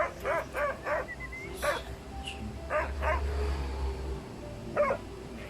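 A dog barking in short, sharp barks: about four in quick succession in the first second, then a few more spaced out over the next few seconds.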